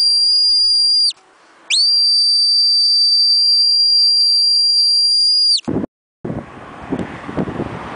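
A whistle blown in long, steady, high-pitched blasts: one ends about a second in, and the next runs from just under two seconds to nearly six, each sagging in pitch as the breath runs out. After a brief dropout, wind buffets the microphone.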